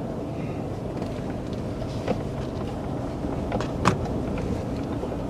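A car rolling slowly, heard from inside the cabin: low, steady engine and tyre noise as it turns onto a dirt and gravel drive, with a few sharp clicks, the loudest about four seconds in.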